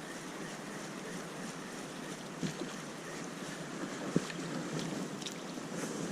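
Steady rush of moving river water with wind on the microphone, broken by two sharp knocks, the louder one about four seconds in.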